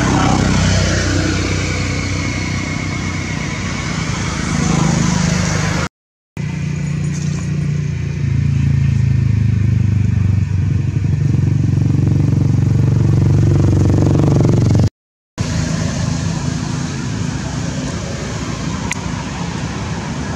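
An engine running steadily as a low, even hum, cutting out suddenly twice.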